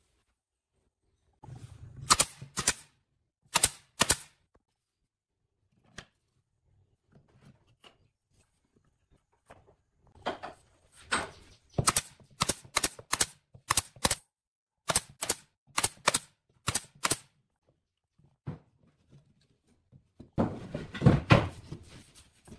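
F50 pneumatic brad nailer firing brads into pine boards: sharp shots, a couple of pairs and then a quick run of about a dozen. Near the end, a cluster of wooden knocks and thuds as the boards are handled.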